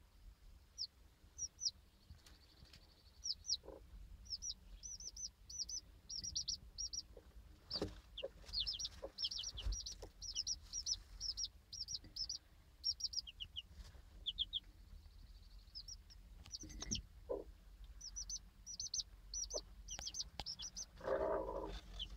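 Six-day-old chicks peeping in runs of quick, high, falling chirps, with a black bantam hen giving a few low clucks, the loudest near the end. Scattered light taps run through it.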